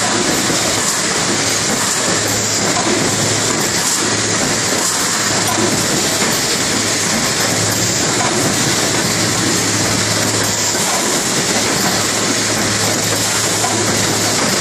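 TPMI 2400 SS automatic case packer running at speed, cartons riding its conveyors. It makes a steady mechanical noise with a hiss and a low hum that swells and fades every second or so.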